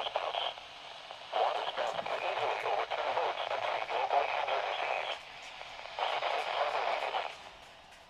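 Automated NOAA Weather Radio voice reading a broadcast through the small, tinny speaker of a Midland weather alert radio, in phrases broken by short pauses.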